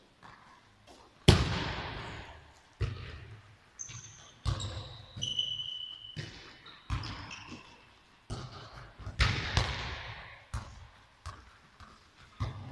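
Handballs shot hard at goal, striking the goal, floor and walls and bouncing: a series of sharp thuds, about ten, each ringing on in the hall's echo, the loudest about a second in. A few brief high squeaks come around the middle.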